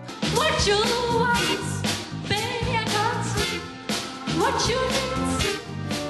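Music: a pop song with a singing voice sliding up into its notes over a band with drums.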